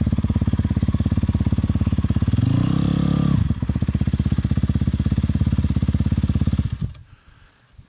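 Yamaha YZ250FX dirt bike's single-cylinder four-stroke engine idling with an even, rapid thump. It gives one short blip of the throttle about two and a half seconds in, then stops near the end.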